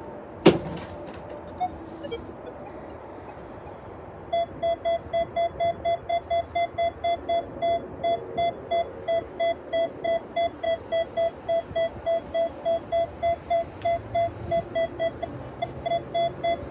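Minelab Equinox 900 metal detector beeping as rusty iron junk is passed over its EQX 11 coil: short tones at one pitch, about three a second, starting about four seconds in. A sharp knock about half a second in is the loudest sound.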